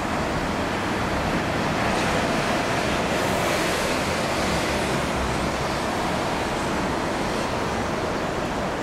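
Steady rushing roar of a Boeing 747-400 freighter's four jet engines on approach, heard from a distance, swelling slightly a few seconds in.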